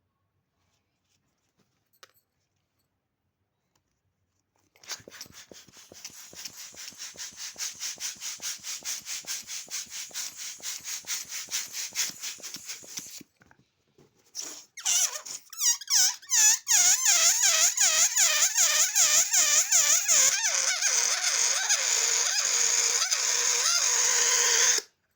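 Balloon pump inflating a rubber animal balloon. First comes a rapid, even pulsing for several seconds. After a short break there is a loud, high squealing whose pitch wobbles up and down about twice a second, and it cuts off suddenly near the end.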